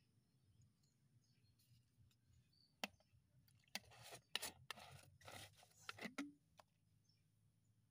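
Plastic bottle being picked up and handled: a sharp click, then a run of faint short scraping and crinkling noises of hands gripping the plastic.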